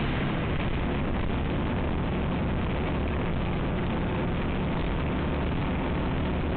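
Steady rush of wind and motorcycle running noise from a Yamaha XTZ125, a small single-cylinder trail bike, ridden at an even pace.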